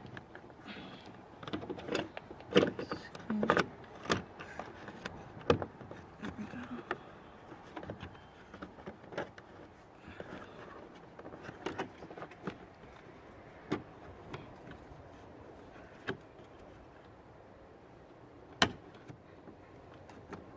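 Irregular clicks and knocks of plastic and metal parts being handled and pressed into place while a replacement car door handle is fitted in the door, busiest in the first half, with one sharp click near the end.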